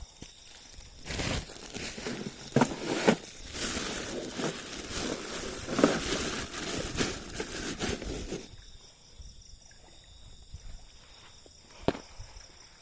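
Irregular rustling and crinkling with several sharp knocks, which drops off after about eight seconds to quiet, with one more click near the end.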